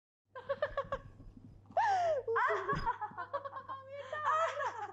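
A woman laughing, starting after a moment of silence with short quick bursts, then longer laughs that slide up and down in pitch.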